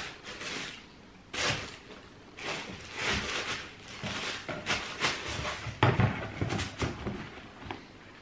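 Irregular rustling and light knocks of trainers and a cardboard shoebox being handled, a few seconds of scattered short noises.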